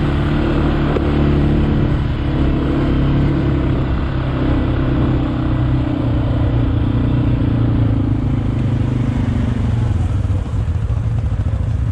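ATV engines running at fairly steady, low revs. A higher engine note fades out about eight seconds in, leaving a deep rumble.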